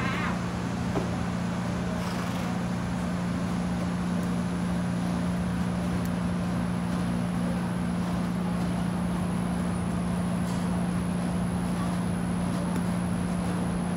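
Steady low mechanical hum of a running motor, unchanging in pitch and level.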